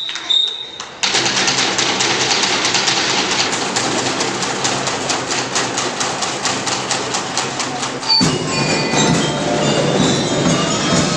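School drum and lyre band playing. About a second in, the snare drums strike up a fast, even beat, and near the end bass drums and bell lyres join in with a fuller sound.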